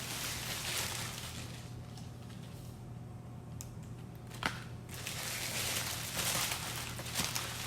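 Rustling, crinkling noise that drops away for a couple of seconds in the middle and comes back, with a few sharp clicks, over a faint steady low hum.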